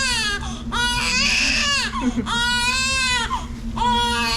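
Newborn baby crying in a run of wails about a second long each, every wail rising and then falling in pitch, with short breaths between them.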